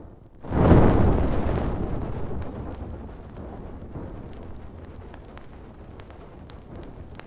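Fire sound effect: a burst of flame whooshes up suddenly about half a second in, then dies away over a few seconds into low, steady burning with scattered crackles and pops.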